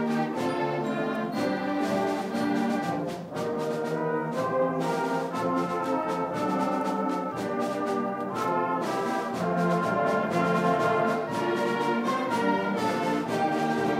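Seventh-grade school concert band playing a march, the brass section and tubas to the fore, with a short break in the sound about three seconds in.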